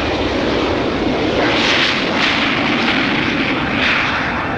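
Cessna T-37 jet trainer's twin turbojets running at takeoff power on its takeoff roll: steady jet noise whose hiss swells about one and a half seconds in and again near the end.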